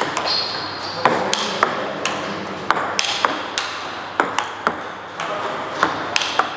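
Table tennis rally: the ball clicks sharply off the paddles and bounces on the table in a quick, uneven series of a dozen or more hits.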